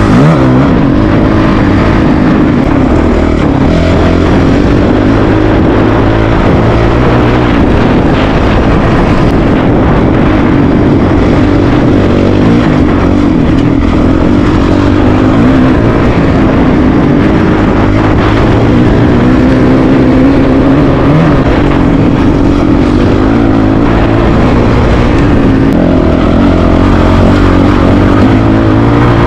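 Single-cylinder dual-sport motorcycle engine running under way, its note shifting with the throttle, over a steady rush of noise.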